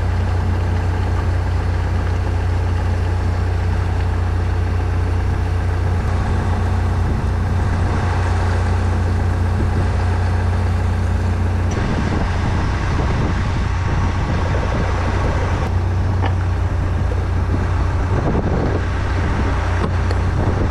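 Engine idling steadily, a constant low hum that gets rougher about twelve seconds in.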